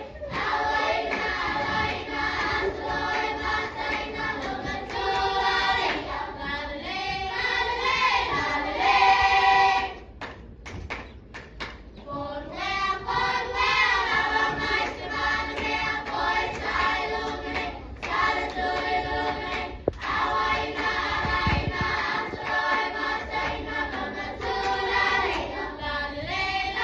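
A choir of voices singing a Samoan song together. The singing breaks off for about two seconds near the middle, leaving only a few sharp claps or taps, then resumes.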